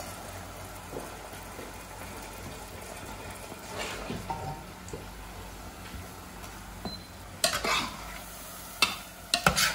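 Battered seitan deep-frying in a saucepan of hot oil, a steady sizzle. Metal utensils clink and knock against the pans several times in the second half as the food is stirred.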